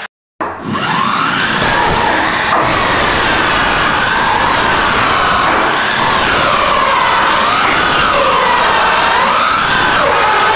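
Electric drill running, its motor whine wavering up and down in pitch as it cuts a hole for a spotlight. The sound starts just after a brief dead gap at the very start.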